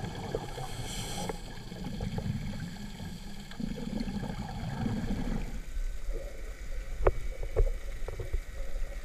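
Muffled underwater noise heard through a GoPro housing on a scuba dive: a scuba regulator hisses briefly about a second in, then exhaled bubbles rumble for a couple of seconds. After that the water noise drops and a few sharp knocks sound against the housing.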